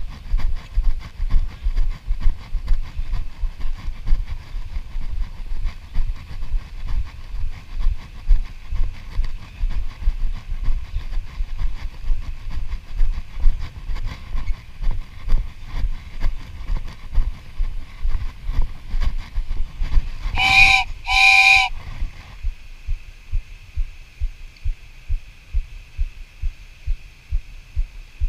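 Rhythmic low thumping, about two a second, with two short, loud, high-pitched blasts about two-thirds of the way through, followed by a faint steady high tone.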